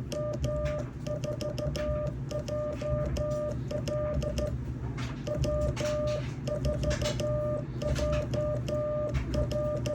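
Morse code sent by hand on a straight key: the radio's CW sidetone beeping on and off in dots and dashes, with the key's contacts clicking at each press and release.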